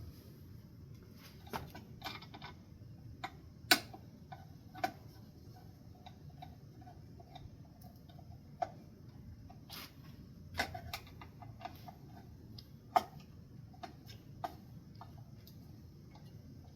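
Irregular sharp clicks and taps of metal ceiling-fan parts and hardware being handled and fitted, with the loudest knocks about 4 and 13 seconds in.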